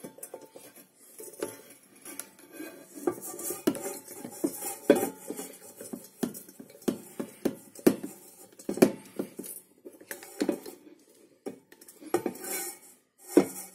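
Hand rivet gun clicking and clanking as its handles are squeezed to set a pop rivet in a hole in an enameled steel pot, each stroke ringing through the pot. The sharp clicks come irregularly, about one or two a second.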